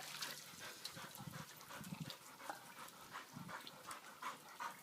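A dog panting, with short high whines coming more often toward the end.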